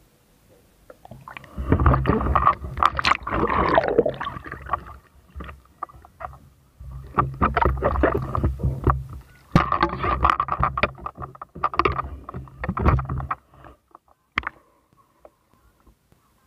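Water sloshing and churning around an underwater camera as it moves through shallow sea water, in three long bursts of crackling splashes, then a few isolated clicks near the end.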